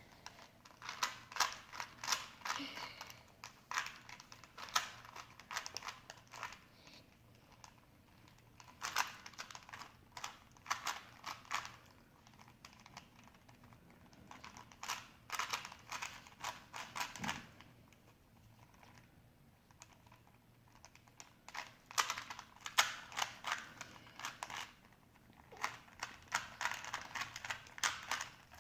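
A Rubik's cube being turned quickly by hand: its plastic layers click in rapid runs, with pauses of a second or more between bursts of moves.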